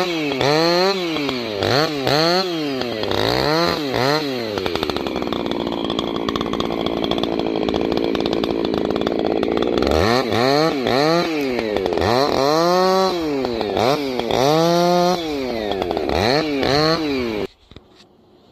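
Husqvarna two-stroke chainsaw limbing branches off a downed tree: quick repeated throttle revs, a steady cut of about five seconds under load, more revs, then the engine cuts off abruptly near the end.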